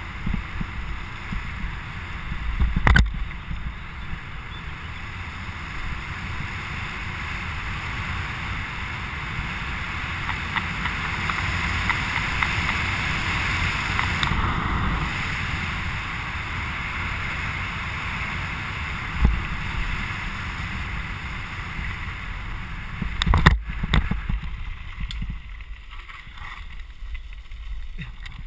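Wind buffeting the microphone of a camera mounted on a mountain bike riding fast downhill, over a low rumble of tyres on the road surface. The rush swells in the middle, and a few sharp knocks come through, about three seconds in and twice more near the end.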